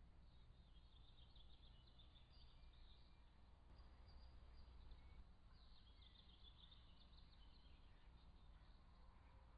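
Near silence with faint songbird trills: two stretches of rapid, high notes a few seconds each, the second opening with a falling note, over a low steady hum.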